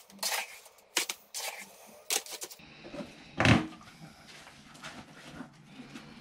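A hand trowel scraping and scooping wet concrete out of a flexible plastic tub, several short scrapes in the first two and a half seconds. A single loud thump comes about three and a half seconds in, followed by quieter handling noise.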